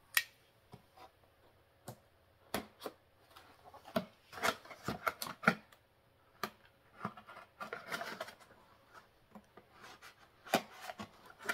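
A cardboard retail box being worked open by hand: scattered clicks, scrapes and rustling as the end of the box is pried and pulled open.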